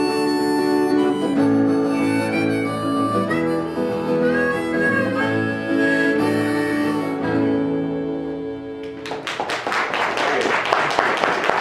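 Harmonica playing over strummed acoustic guitar in an instrumental close to the song. The music dies away and, about nine seconds in, a dense burst of applause starts.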